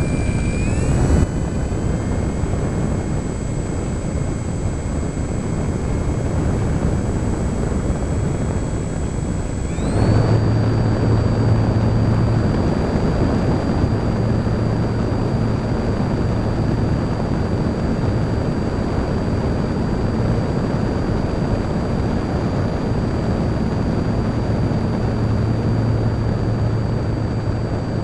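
Parkzone Radian glider's brushless electric motor and propeller running under power, heard from on board: a steady whine that steps up in pitch about a second in, then jumps sharply higher about ten seconds in as the motor speeds up, over a steady rush of wind.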